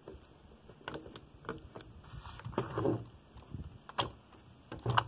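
Steel saw chain clinking and rattling against the guide bar and the chainsaw's housing as it is handled and fitted, in irregular clicks, the sharpest about four seconds in.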